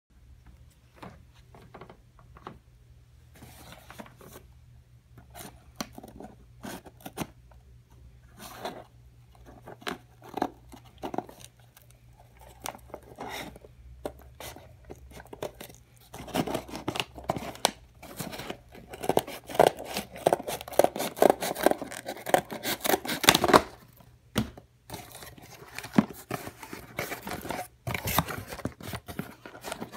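A cardboard shipping box being opened by hand: scattered scrapes and clicks at first, then a loud, dense run of packing tape and cardboard flaps tearing from about halfway in. Near the end, the packaging inside is being handled.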